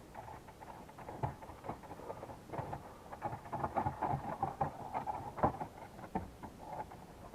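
Irregular clicking, tapping and scraping of plastic dashboard parts being handled while the 4x4 switch and its trim are fitted.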